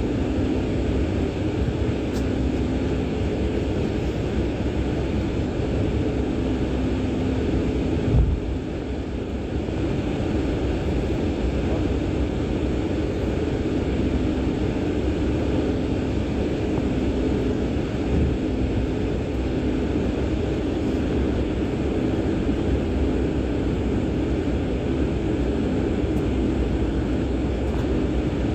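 Steady jet engine hum and cabin noise heard from inside a KLM Cityhopper Embraer regional jet as it taxis, with one short thump about eight seconds in.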